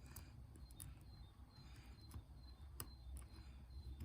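A few faint, scattered metallic clicks of a lock pick working inside a small padlock, over a low hum.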